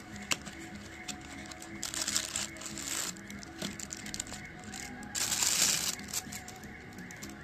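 Thin clear plastic bag wrapped around a wristwatch rustling and crinkling as it is handled and pulled off, in two bursts about two seconds in and about five seconds in, with a few sharp clicks of handling. Background music runs steadily underneath.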